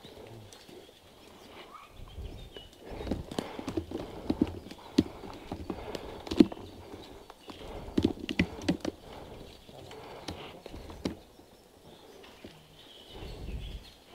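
Footsteps through forest undergrowth, with irregular knocks and clicks from the carried JG G36 airsoft rifle, heard close up on the gun.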